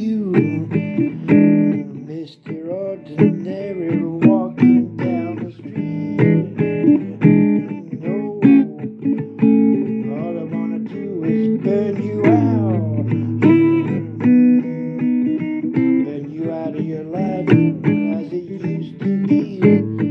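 Blues music: a guitar-led instrumental passage, with plucked notes that bend in pitch over a steady accompaniment.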